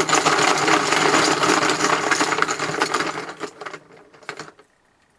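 Small hard objects rattling and clattering inside a helmet as it is shaken to draw a team. The rattling fades and stops about four and a half seconds in.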